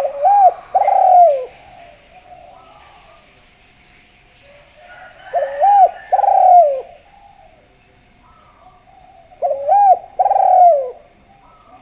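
Spotted dove (derkuku) cooing: three loud phrases about five seconds apart, each a short up-and-down note followed by a longer falling coo. Fainter cooing from another dove comes in between.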